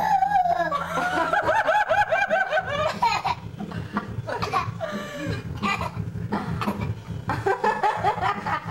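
Laughter: a quick, high-pitched run of ha-ha-ha pulses for the first few seconds, then scattered laughing and voice sounds, over a steady low hum.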